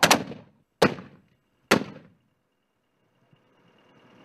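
Mortar firing: three sharp reports a little under a second apart, each with a short echoing tail.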